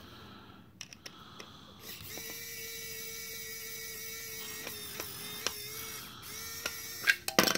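Small cordless electric screwdriver whirring steadily for about four seconds as it drives the screw of a plastic toy battery box, with a few sharp clicks during the run. A couple of louder knocks near the end as the box is handled.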